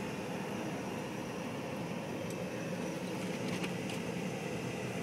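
Steady running noise of a car heard from inside its cabin as it drives slowly along a snow-covered street.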